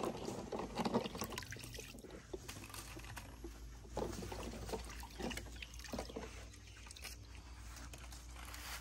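Water splashing and trickling as plastic hydroponic planting cups are swished and rinsed by hand in a plastic basin, with many light clicks of the cups knocking together.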